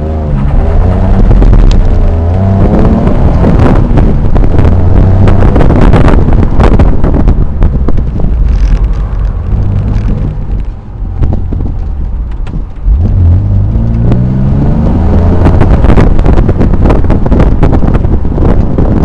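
Twin-turbocharged 2004 Nissan 350Z roadster's 3.5-litre V6 pulling hard under acceleration with the revs climbing, a drop off the throttle about eleven seconds in, then climbing again hard from about thirteen seconds.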